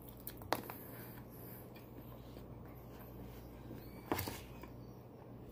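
Faint chewing and mouth noises from someone eating a burrito, with two short, sharp clicks, one about half a second in and one about four seconds in.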